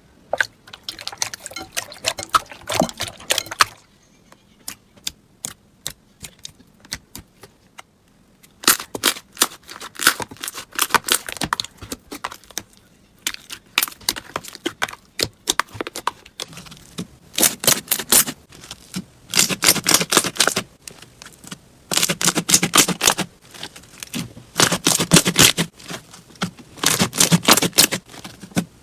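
Slime being squeezed and pressed by hand, giving bursts of crackling clicks. After a quiet stretch a few seconds in, the bursts come again and again, every second or two.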